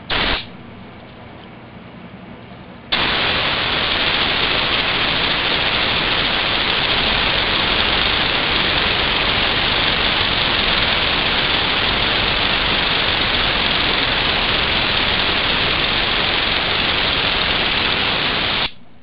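Compressed air hissing from an air-compressor blow nozzle as it drives a Lego pneumatic engine at about 1,500 rpm. A short blast comes first, then after about three seconds a loud, steady hiss that cuts off suddenly near the end.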